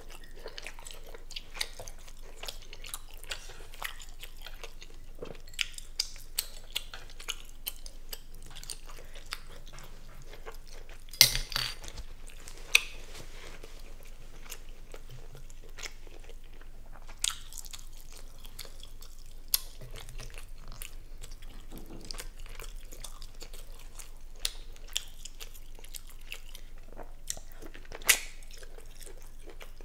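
A person chewing and biting into seafood boil close to the microphone: soft, wet mouth clicks and smacks throughout, with a few louder, sharper smacks now and then.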